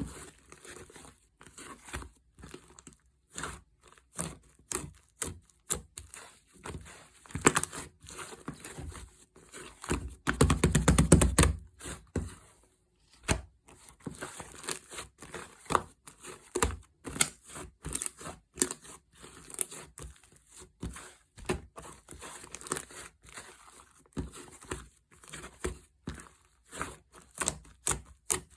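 Green fluffy slime being squeezed, poked and stretched by hand, giving irregular sticky pops and crackles, with a dense run of rapid popping about ten seconds in.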